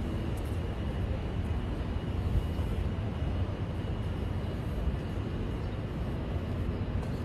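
Steady low rumble of city traffic noise, with no single event standing out.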